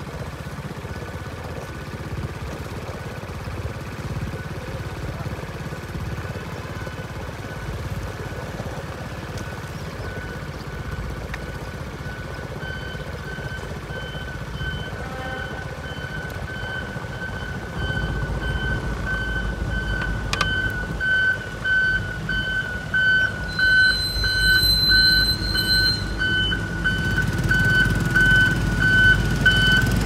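Diesel engine of a pneumatic-tyred road roller running, louder in the second half as it comes closer. A reversing alarm beeps steadily from a little before halfway, as the roller backs up on the new asphalt.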